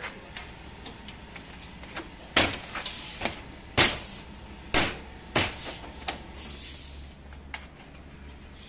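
Side cover trim being pressed and snapped onto the end post of a modular office partition panel: a run of sharp clicks and knocks, the loudest coming at irregular moments from about two and a half to five and a half seconds in.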